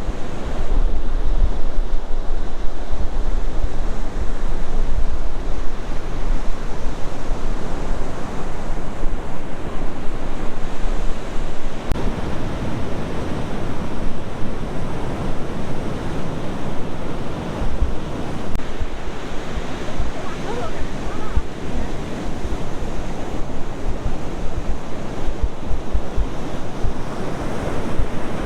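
Ocean surf washing on a beach, steady and loud, with wind buffeting the microphone in low rumbling gusts.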